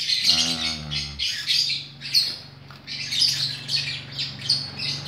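Small birds chirping rapidly and repeatedly in the background, with a steady low hum underneath.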